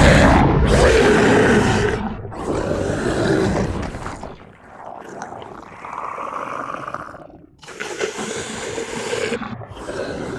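Giant-monster roar sound effects for an animated Godzilla: a run of long, rough roars with short breaks between them. The first is loudest and the later ones are quieter.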